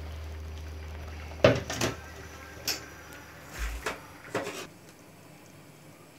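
A steel cooking pot knocking and clanking a few times against the sink and the plastic colander as it is handled and set down after draining boiled rice, then little but faint room noise.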